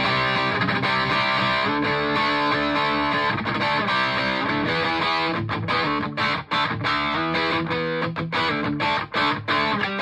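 Electric guitar played through an amplifier: full chords held and ringing for the first five seconds or so, then short, choppy chords with brief gaps between them.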